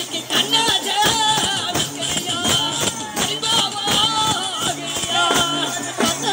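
Festival dance music with a fast, steady drum beat under a wavering melody line.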